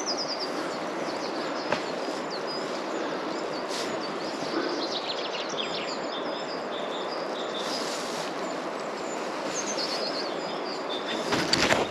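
Steady rush of a flowing river with small birds chirping and singing, many short high notes throughout; a few rustles near the end.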